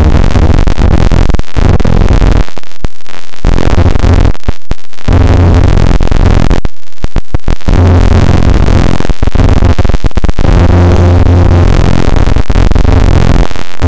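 Small plane's engine and propeller noise during takeoff, recorded so loud that it is heavily distorted, with a steady low hum under harsh noise that breaks up several times.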